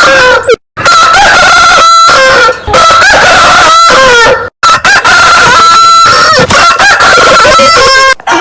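Rooster crowing loudly: several long cock-a-doodle-doo crows, one after another, with short breaks between them.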